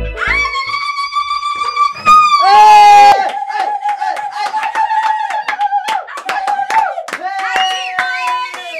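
A high voice singing long held notes, gliding down to a lower held note about two seconds in, with hand clapping joining about three seconds in and going on rapidly.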